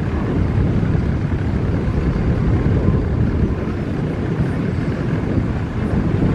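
Strong wind buffeting the microphone: a steady, loud low rumble without any clear engine tone.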